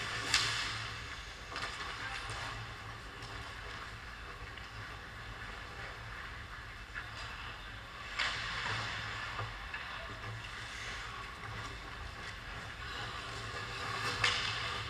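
Ice hockey rink sounds: skate blades scraping on the ice, with a sharp louder scrape or knock just after the start, another about eight seconds in and one near the end, each trailing off, over a steady low hum.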